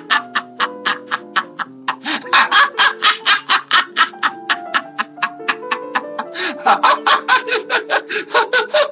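A person laughing hard and without let-up in rapid 'ha' pulses, about five or six a second, with a brief break about two seconds in. Background music with held notes plays underneath.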